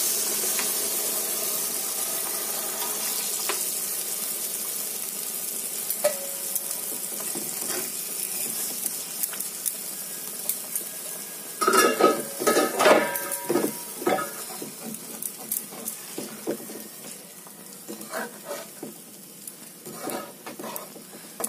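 Fish curry sizzling in a black kadai just after mustard paste and water are poured into the hot oil, the sizzle slowly dying down. About twelve seconds in, a metal spatula scrapes and clanks against the pan for a couple of seconds, with a few lighter taps near the end.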